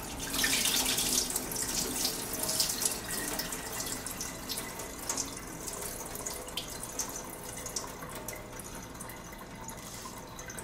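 Starchy rinse water poured off a metal bowl of long-grain rice into a stainless steel sink. It splashes hardest at first, then thins to a trickle and scattered drips as the bowl empties. This is the draining step of rinsing the rice.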